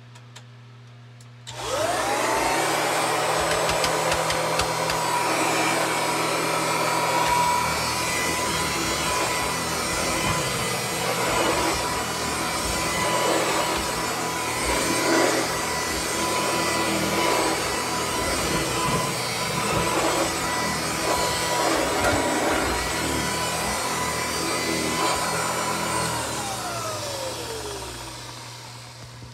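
1953 Kirby 513 upright vacuum cleaner switched on, its motor whine rising in pitch as it spins up, then running kind of loud and steady while pushed over a rug. A few seconds before the end it is switched off and the whine falls away as the motor coasts down.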